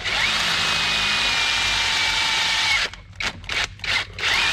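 Power drill with a step drill bit boring the hole for a bulkhead connector: about three seconds of steady drilling with a faint whine, then a run of about six short trigger bursts.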